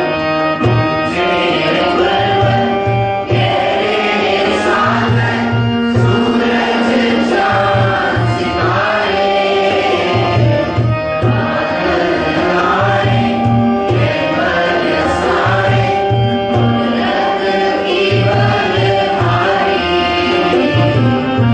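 Devotional prayer song: voices singing over held reed-organ chords, with tabla keeping a steady rhythm of low strokes.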